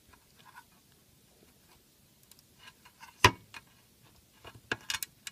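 Scattered sharp clicks and light taps of a small plastic battery connector plug being handled against its bracket in a sheet-metal battery housing. The loudest click comes about three seconds in, with a quick cluster of clicks near the end.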